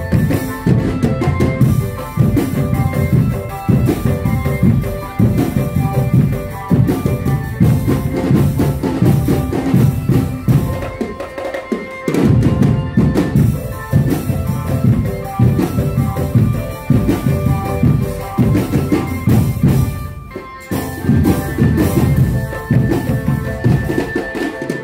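Drum band music: bass drums and snare drums beating a steady rhythm under a melody. It dips briefly about eleven seconds in and again about twenty seconds in.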